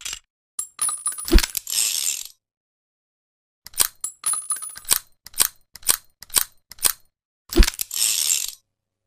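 .357 revolver being handled between shots: metallic clinks that ring briefly, each followed by a short rattle, and a run of about ten sharp clicks, roughly three a second.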